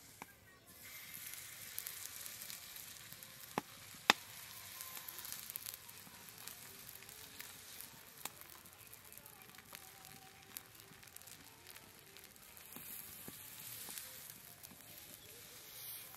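Egg-paratha batter sizzling on a hot iron tawa, a faint steady hiss that sets in about a second in as the batter meets the pan. A few sharp clicks punctuate it, the loudest about four seconds in.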